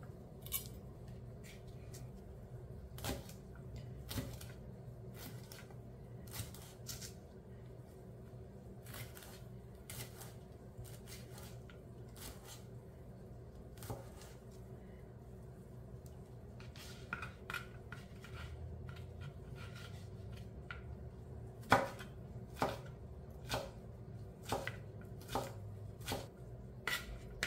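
Chef's knife cutting a jalapeño on a plastic cutting board: scattered single knife taps as it is sliced into strips, then quicker, louder chopping in the last few seconds as the strips are diced.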